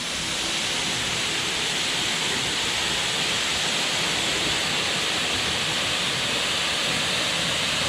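Glencar Waterfall's water falling into its pool, a steady, even rush with no breaks. The fall is running low, its rock face largely dry rather than streaming.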